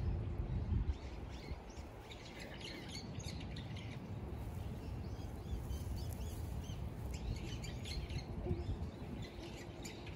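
Small songbirds chirping in two spells, about two seconds in and again about seven seconds in, over a low steady outdoor rumble.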